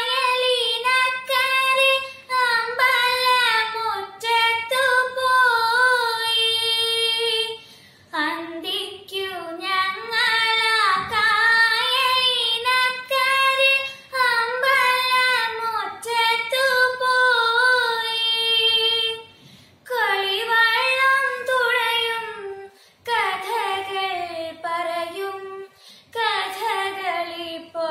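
A girl singing a Malayalam song solo and unaccompanied, in long melodic phrases with short pauses for breath.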